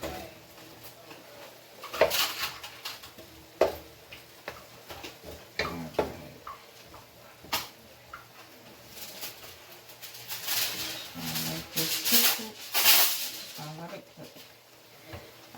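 Kitchen clatter: scattered sharp knocks and clinks of dishes and utensils, with some indistinct voice-like sound near the end.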